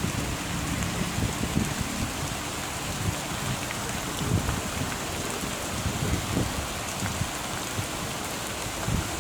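Heavy rain pouring down in a steady hiss, with irregular low rumbles underneath.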